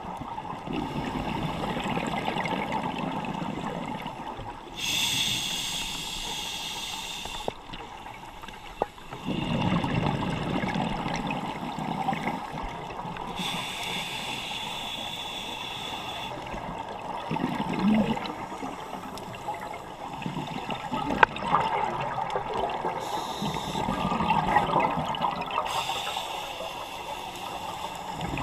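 Scuba diver breathing through a regulator underwater: exhaled bubbles gurgle and rush in surges every several seconds.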